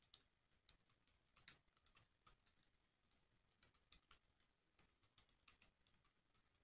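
Faint typing on a computer keyboard: an uneven run of quick key clicks, several a second, with a short pause partway through.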